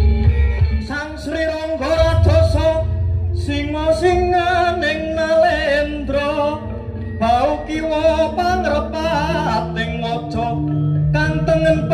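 Amplified music with a singing voice over heavy bass, played through a large carnival sound system.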